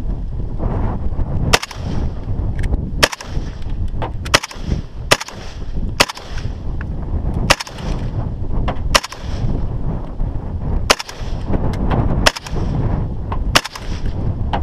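Firearm shots, fired one at a time: about ten sharp reports spaced roughly one to one and a half seconds apart. Steady wind rumble on the microphone sits under them.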